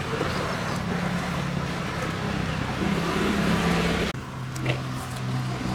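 A cleaning machine's motor hums steadily under a loud hissing rush. The hiss cuts off suddenly about four seconds in, while the motor hum goes on.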